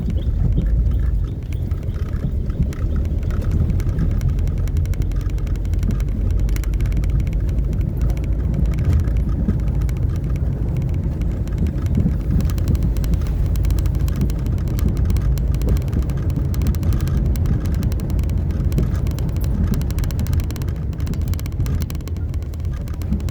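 Vehicle on the move: a steady low rumble of road and wind noise buffeting the microphone.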